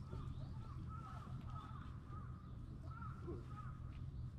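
Short animal calls repeating several times a second, over a steady low rumble.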